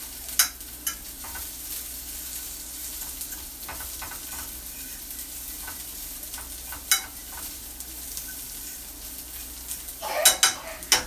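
Sliced onions sizzling as they fry and brown in a nonstick frying pan, stirred with a utensil that clicks and scrapes against the pan now and then. The loudest clatter of utensil on pan comes near the end.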